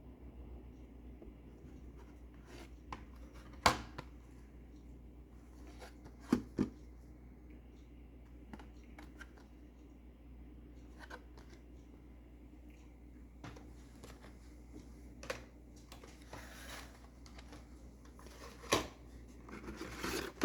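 Blister-carded die-cast toy cars and their cardboard case being handled: scattered sharp clicks and knocks of plastic and card, about half a dozen, with light rustling between them.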